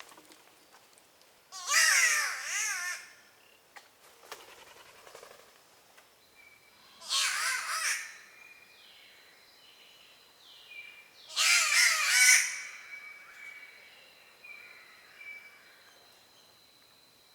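Spotted catbirds (Ailuroedus maculosus) calling: three loud, cat-like yowls a few seconds apart, each about a second long, rich in overtones that waver up and down in pitch. Faint thin whistles sound between the calls.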